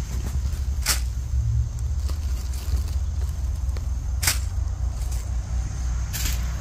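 Steady low rumble of wind buffeting a handheld microphone, with three short sharp crackles about a second in, around four seconds in and near the end.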